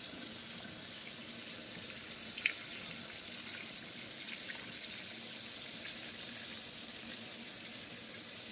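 Water pouring steadily from a plastic pitcher into a stainless steel stockpot of pork fat chunks, with one light click about two and a half seconds in.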